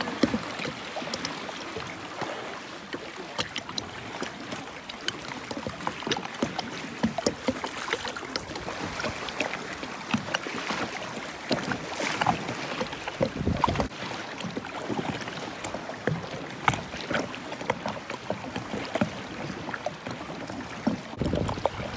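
Sea water splashing and lapping around a plastic sit-on-top kayak as it is paddled, with small waves washing against nearby rocks. Many short, irregular splashes sit over a steady wash of water.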